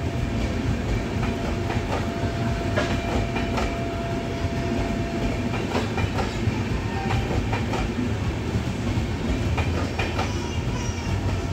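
Indian Railways LHB passenger coaches rolling past: a steady rumble of wheels on rails with irregular clicks and clacks as the wheels cross rail joints, and a faint thin whine in the first half.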